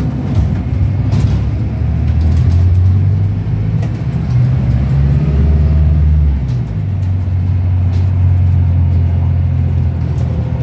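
Volvo B5LH hybrid bus's diesel engine pulling hard under heavy throttle, heard from inside the lower deck as a loud, deep drone. It climbs in pitch over the first few seconds, drops about six and a half seconds in, then holds steady.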